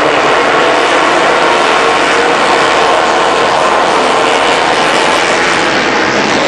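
Racing motorcycle engines on the circuit, heard as a loud, steady blend of engine noise without single clear pass-bys.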